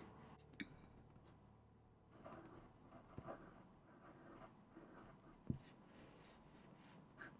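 Faint scratching of a pencil sketching on hot-pressed watercolour board, in light strokes, with a soft tap about five and a half seconds in.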